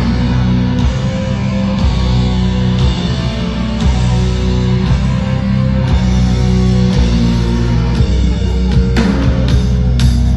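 Heavy metal band playing live through a stadium PA, loud and steady, with heavy distorted electric guitars carrying the song's instrumental outro.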